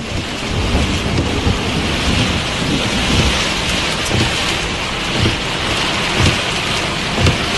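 Heavy storm rain pouring down in a steady loud hiss, with irregular low thumps and rumbles from strong wind gusts.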